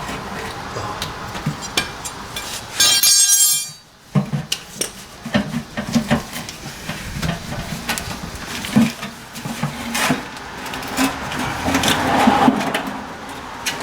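Irregular metallic clinks and knocks of tools and engine parts being handled under the car. About three seconds in there is a brief high-pitched burst, after which the sound cuts off suddenly.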